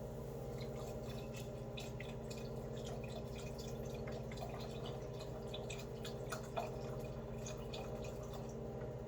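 Chicken broth dripping and splashing in a saucepan with chopped vegetables, a run of small irregular drips and ticks over a steady low hum.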